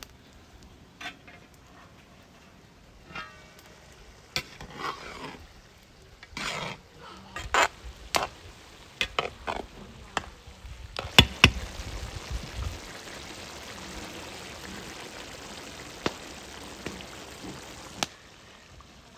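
Metal scraping and knocking on a wide metal cauldron as the lid is handled and a spatula stirs minced meat and onions, with a few sharp clanks about halfway through. From then on the meat sizzles steadily in its juices.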